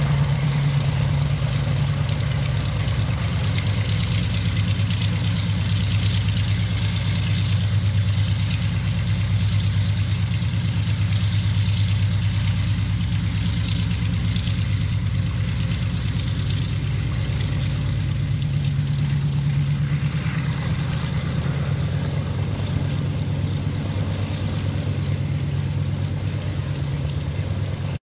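Fairchild C-123 Provider's two radial piston engines running at low power while the aircraft taxis, a steady low propeller drone.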